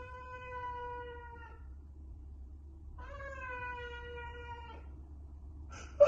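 Tabby cat meowing in two long, drawn-out calls, each about a second and a half, steady in pitch and dipping slightly at the end. A brief louder sound comes right at the end.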